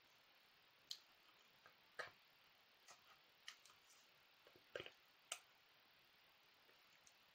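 Near silence broken by faint, irregular clicks and taps, about a dozen, scattered from about a second in to the middle, from hands touching and knocking together while signing.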